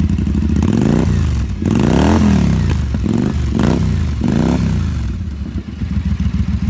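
Triumph Bonneville Speedmaster's 270-degree-crank parallel-twin engine idling through its exhaust, blipped up about four times in quick succession, the biggest rev about two seconds in, then settling back to idle near the end.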